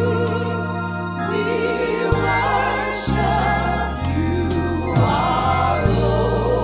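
A small gospel choir sings with vibrato over held organ chords, the low notes shifting every second or so.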